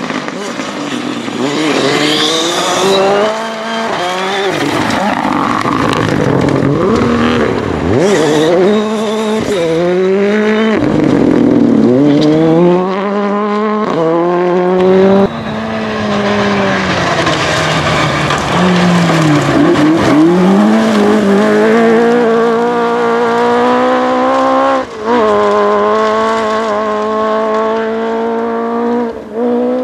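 Rally car engine at full effort on a stage: it revs up and drops back again and again as the car brakes and accelerates through corners. Later it climbs in pitch through the gears in one long pull, with a brief break for a gear change near the end.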